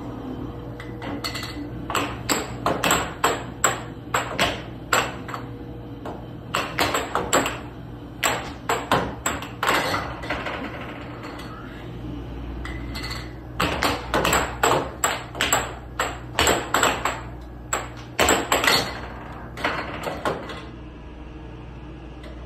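Air hockey puck and plastic mallets clacking in quick rallies of sharp hits and rebounds off the table's rails, with a short lull about halfway through. The steady hum of the table's air blower runs underneath.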